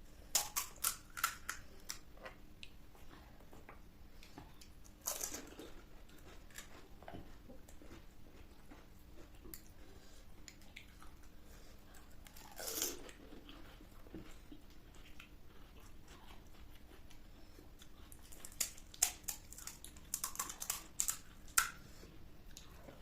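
Crisp fried food being bitten and crunched in the mouth, with quieter chewing in between. There is a cluster of crackly crunches near the start, single bursts about five and thirteen seconds in, and another run of crunches in the last few seconds.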